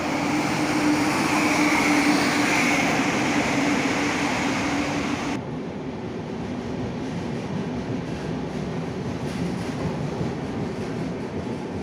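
A passenger train's locomotive runs directly below with a steady hum over rushing noise. About five seconds in the sound changes abruptly to the duller, steady rumble of the coaches rolling past.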